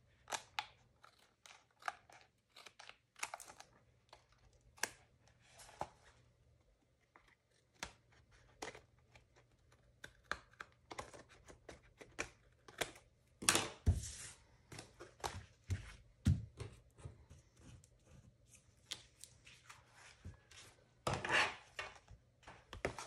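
Scissors snipping through cardstock in a string of short, irregular cuts, trimming overhanging die-cut pieces flush with the edge of a scrapbook page, with paper being handled between cuts. A louder knock comes about 14 seconds in and a brief rustle about 21 seconds in.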